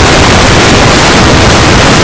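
Very loud, steady static noise spread evenly from deep to shrill, with no tone, beat or break: heavily distorted, clipped digital noise.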